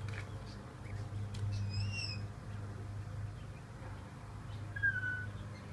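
Ducklings peeping: one short peep about two seconds in and a falling peep near the end, over a steady low hum.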